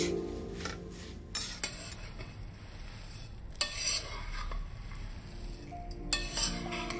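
A metal spatula stirring and scraping dry puffed rice around a stainless steel pan as it is sautéed. The grains rustle, and the spatula clicks sharply against the pan a few times.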